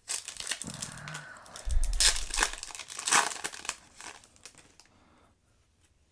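Foil Yu-Gi-Oh! booster pack crinkling and being torn open by hand, crackling for about four seconds with a dull bump of handling near two seconds in, then dying away.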